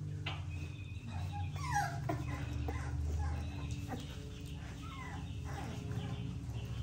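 Four-week-old XL pit bull puppy whimpering in short, falling cries while being dosed with dewormer, over a steady low hum.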